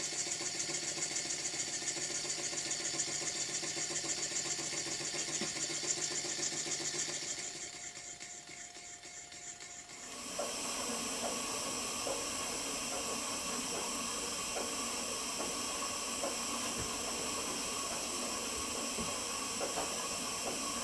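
Small Bassett-Lowke twin-cylinder, Tangye-style horizontal model steam engine running on steam, with a fast, even exhaust beat and hiss; it fades out at about 8 seconds. From about 10 seconds on there is a steady hiss of steam from a model table engine steam plant, with scattered light clicks.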